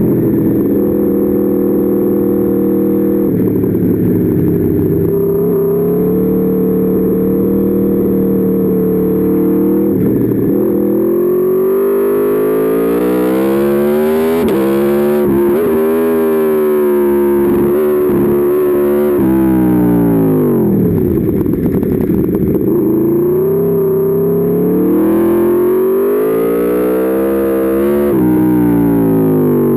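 Aprilia Tuono V4's V4 engine running under hard riding, its pitch climbing and falling over and over as it accelerates and slows for corners. Slightly past the middle the revs drop deeply before climbing again.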